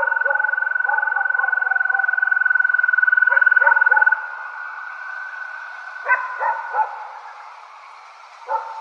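Ghostly weeping sound effect: a long, high, wavering wail held for about four seconds and then fading, over short yelping sobs that come in clusters of two or three.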